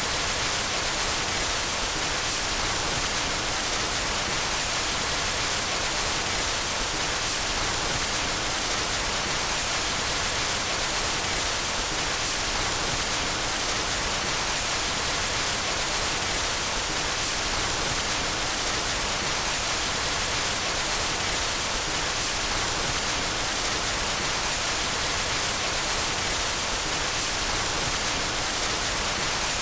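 Steady white noise: an even hiss that never changes in level or character.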